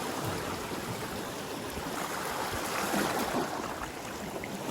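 Sea water washing and swirling over shoreline rocks on an incoming tide, a steady rushing that swells and eases.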